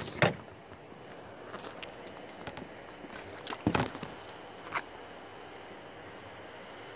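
A few scattered handling knocks and taps: one just after the start, two heavier ones a little before the middle, a lighter tap shortly after. Under them is a steady faint hiss.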